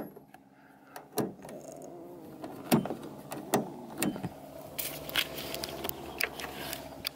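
Scattered clicks and knocks from hands working the car's interior fittings (the dome light and the door-panel switches), over a steady low hum that sets in about a second in.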